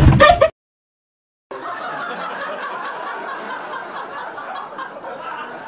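A moment of talking that cuts off abruptly, a second of dead silence, then a steady wash of many people laughing, like a laugh track.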